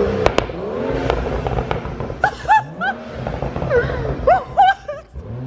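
A BMW 435i's turbocharged 3.0-litre inline-six is revved hard several times through a valved axle-back exhaust with the valves held open in Sport Plus mode. Each rev rises and falls in pitch, with a few sharp cracks, most of them in the first couple of seconds.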